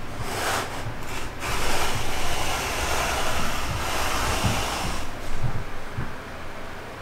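Wooden blocks sliding across a plywood benchtop, a rough scraping hiss. There are short scrapes in the first second or so, then a longer slide that fades about five seconds in.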